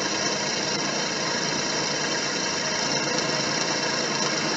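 Drill press running steadily under power, its motor hum mixed with the noise of a bit cutting.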